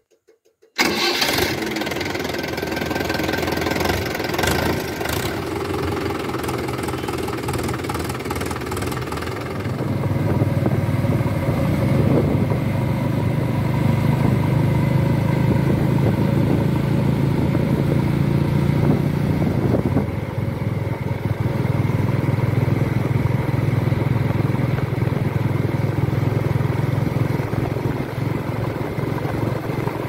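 A tractor's diesel engine starts abruptly about a second in and runs with a clatter. About ten seconds in it gives way to the steady, deeper running of a JCB 3DX backhoe loader's diesel engine.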